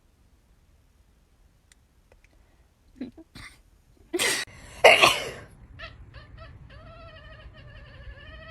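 A cat crying out: after a few soft clicks, two loud harsh cries about four and five seconds in, then a long wavering wail that runs on to the end.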